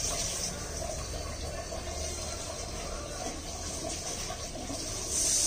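Water running steadily during a puppy's bath, with a louder rush of water starting near the end.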